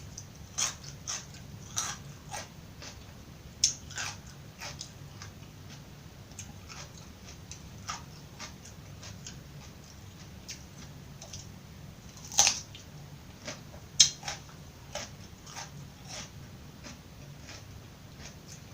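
Close-miked chewing of crisp raw vegetables: a steady run of irregular crunches and wet clicks, with two louder crunches about twelve and fourteen seconds in.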